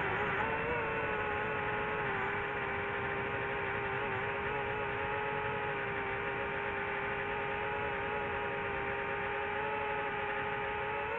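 Drone motors and propellers whining steadily in flight: one pitched whine with overtones that dips slightly about half a second in, then holds an even pitch.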